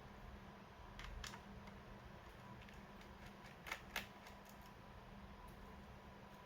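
A few faint clicks and taps from hands working on a laptop's plastic case and parts, with two sharper clicks close together a little past the middle, over a low steady hum.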